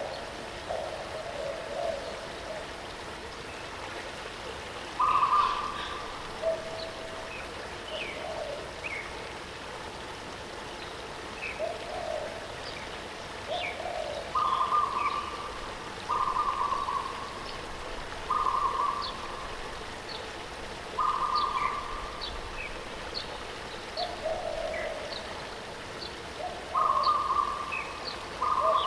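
Birds calling over the steady rush of a waterfall. Low hooting notes at two pitches, each under a second, repeat every second or two, mixed with short high chirps.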